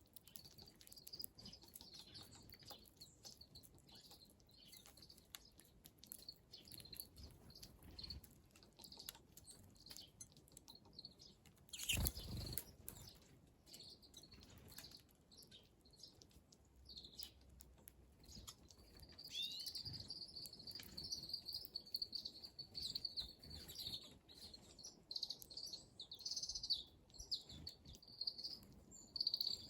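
Small wild birds chirping and twittering in short high calls, growing busier in the second half, with one sharp knock about twelve seconds in.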